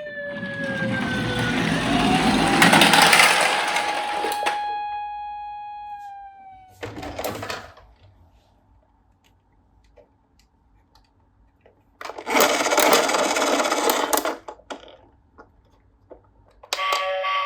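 Toy emergency vehicles: a loud whirring rattle under an electronic siren tone that first falls, then rises and holds before fading out about six seconds in. After a quiet stretch comes a second whirring rattle for about two seconds, and near the end electronic toy-siren tones start pulsing.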